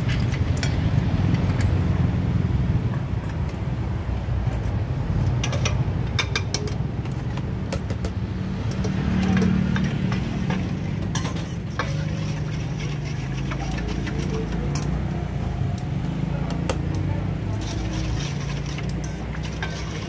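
Steady low background rumble, with scattered light clinks and scrapes of a metal ladle and utensils against stainless steel bowls as a spicy salad dressing is mixed.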